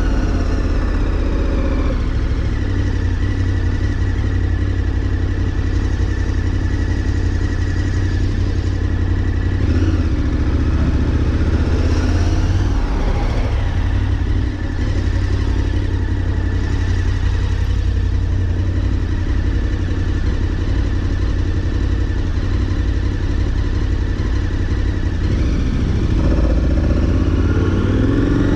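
Adventure motorcycle's engine running at low speed in slow traffic, a steady low drone with small throttle changes and a slight rise near the end.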